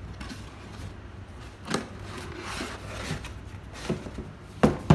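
A large cardboard box being handled and its lid folded shut: cardboard rubbing and scraping, with a soft knock about a second and a half in and two sharp thumps near the end, the last the loudest.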